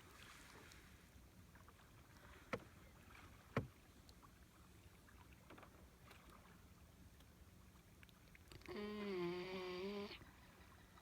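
Newfoundland puppy snoring in its sleep: one pitched, wavering snore about a second and a half long near the end. Before it, two sharp knocks about two and a half and three and a half seconds in.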